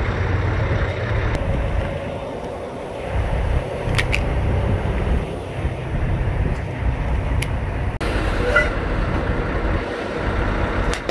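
Semi-truck rolling slowly on asphalt: a steady low rumble with tyre and road noise, and two sharp clicks partway through.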